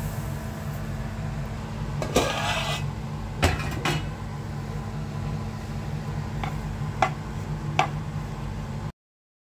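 A stirring utensil scraping and knocking against a non-stick wok as thick semolina upma is mixed, with a longer scrape about two seconds in and sharp knocks around three and a half, seven and eight seconds in, over a steady low hum. The sound cuts off suddenly just before the end.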